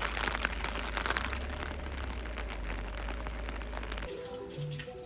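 Heavy rain pattering in dense, irregular drops over a low rumble. The rain sound cuts off about four seconds in, and background music with held tones takes over.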